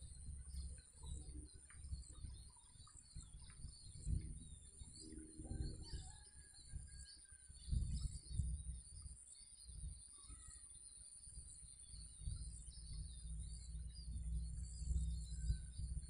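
Countryside ambience: birds chirping over a steady high insect drone, with an uneven low rumble underneath.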